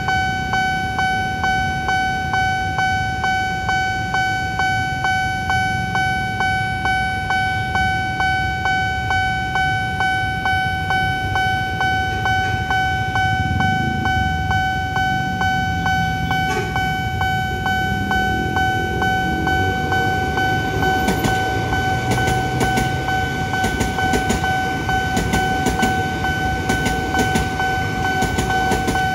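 Railroad crossing warning alarm from the signal post's loudspeaker: a steady ringing tone pulsing about twice a second. From about twenty seconds in, a Soekarno-Hatta airport electric train passes under the alarm, adding a rushing rumble and wheel clicks over the rail joints.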